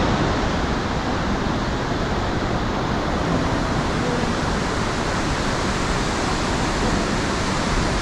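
Steady roar of rushing water from Kegon Falls, a large waterfall: an even, unbroken hiss with no breaks.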